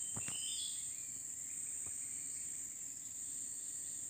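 Steady, high-pitched drone of forest insects, with a short bird call about half a second in.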